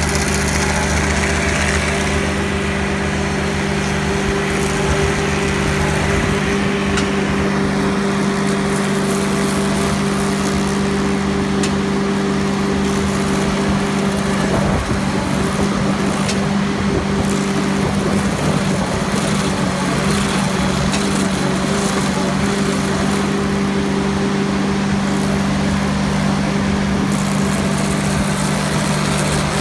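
Ditch Witch mini skid steer's engine running steadily at high throttle, holding one even pitch, while its hydraulic stump grinder attachment cuts into a tree stump.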